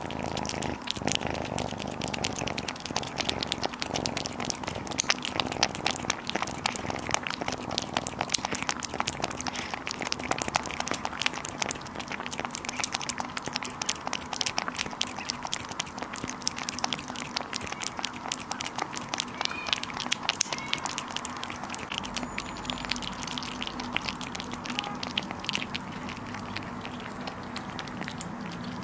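Two kittens licking and slurping raw egg yolks, a fast, steady run of small wet tongue clicks.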